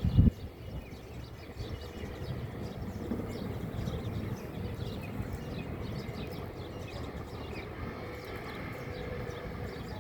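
Many small birds chirping in quick short calls throughout, over a steady low rumble, with a brief low thump right at the start.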